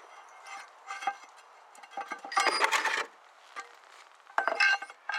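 A heavy steel final-drive cover on an excavator track drive being worked off its housing by hand: short scraping and knocking bursts of metal against metal, with a rag rubbing on the casting. The loudest scrape comes about halfway through.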